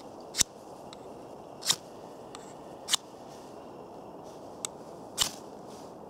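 The spine of a Berloga Knife First SE struck down a ferrocerium rod (fire steel) four times, each stroke a short sharp scrape. This tests the spine as a striker, and it throws sparks.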